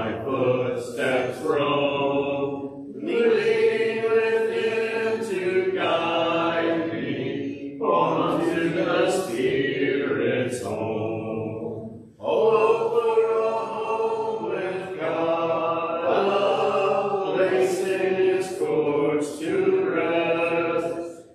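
Church congregation singing a hymn a cappella, unaccompanied voices in held sung lines with brief pauses for breath between phrases.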